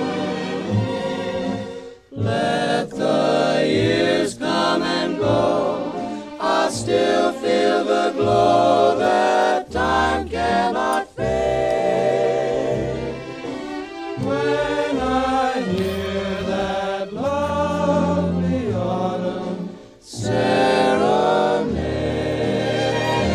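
Slow background music with choir-like voices holding long, wavering notes, and no words are made out.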